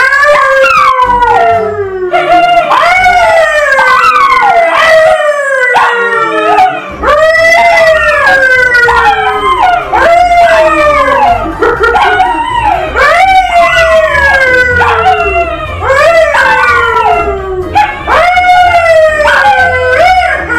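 A man and two dogs, a Labrador and a poodle, howling together in a long series of howls. Each howl rises briefly and then slides down in pitch, and several voices overlap.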